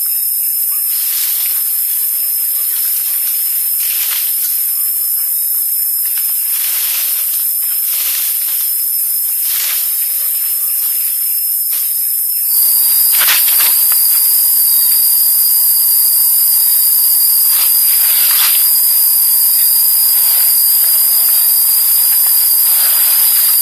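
Loud, steady high-pitched insect drone, typical of cicadas, with a thin steady tone running under it and scattered short clicks or rustles. It gets a little louder about halfway through.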